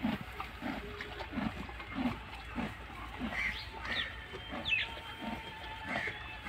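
Horse munching fresh green fodder from a trough: a steady, rhythmic crunching chew, a little under two bites a second. A few high chirps come in near the middle.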